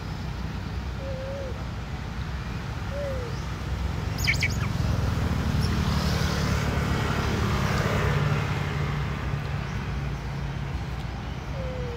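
A steady low engine-like rumble with a few short falling bird chirps, about a second in, three seconds in and near the end. A louder hiss swells through the middle, and a brief run of clicks comes about four seconds in.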